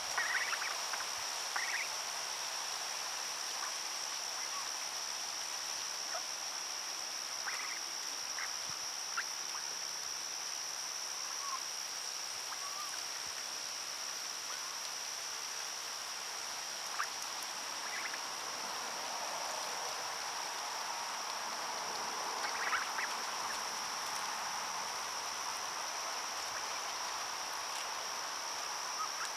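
A steady high-pitched insect chorus, with short scattered calls from a flock of feeding mallards over it.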